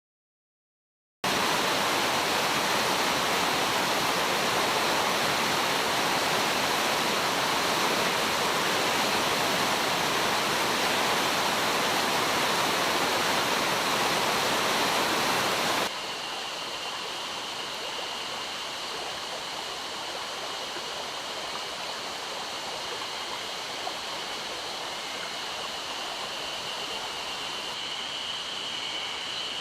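Mountain stream water rushing: a loud steady rush that starts about a second in, then cuts abruptly to a quieter stretch of flowing water about halfway through, where a faint steady high note sits over it.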